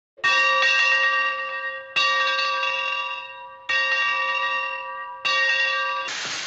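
A bell struck four times, evenly spaced, each stroke ringing out and fading before the next. A loud hiss starts just before the end.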